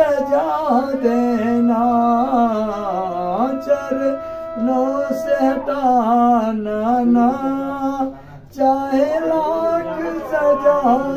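A man singing a slow Hindi-Urdu song in long held notes that bend and glide in pitch, with a short pause for breath about eight seconds in.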